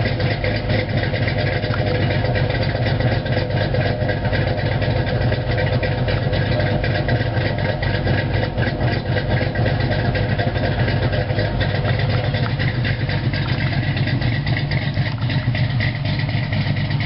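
Cammed Ford Mustang V6 idling steadily through long-tube headers, an off-road H-pipe and Flowmaster 40 mufflers, heard right at the tailpipe.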